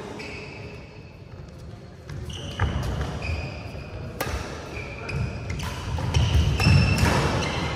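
Badminton rally in a large indoor hall: a few sharp racket strikes on the shuttlecock, short high squeaks of shoes on the court mat, and footfalls.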